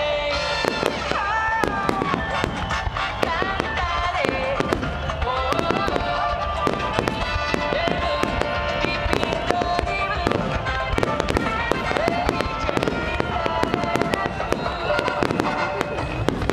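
A dense barrage of aerial firework shells bursting: many sharp bangs and crackles in quick succession. Music with a melody plays underneath.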